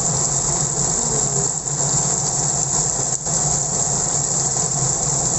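Blended dried-chili paste sizzling steadily in hot oil in a wok while a spatula stirs it, fried until the oil separates from the paste.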